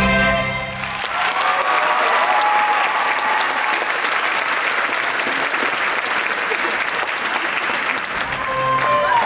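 The last chord of a stage musical number cuts off within the first second, and an audience then applauds steadily. Music starts up again near the end.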